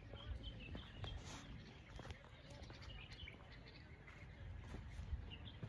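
Small birds chirping faintly in short, high calls now and then, over a low steady rumble.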